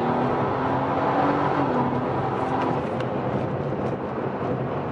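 A BM3-tuned BMW F30's turbocharged engine, fitted with an aftermarket AP Racing intake, is heard from inside the cabin while driving. Its pitch drops about a second and a half in, then it settles into a steady drone.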